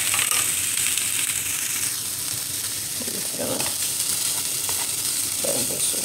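Chunks of sliced sausage and hot dog sizzling steadily in a dry skillet, searing with no oil, while a spatula stirs and scrapes them around the pan.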